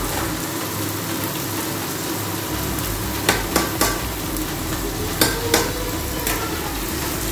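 A pot of boiling dal being stirred with a steady sizzling hiss underneath. A few sharp knocks of the utensil against the aluminium pot come in two clusters, about three seconds in and again around five seconds.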